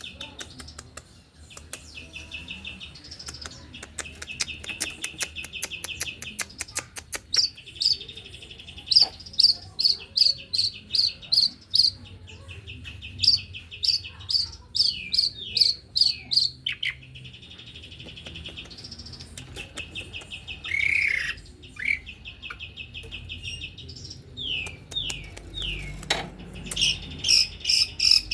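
Long-tailed shrike (pentet) singing a fast, dense song. Buzzy rapid trills alternate with runs of sharp, high, evenly spaced notes, about four a second, and a few downward-slurred notes.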